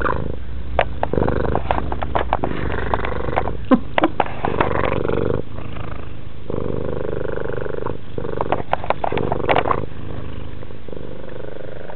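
Ragdoll cat purring steadily right against the microphone, with two spells of sharp clicks and knocks as its teeth gnaw on the camera.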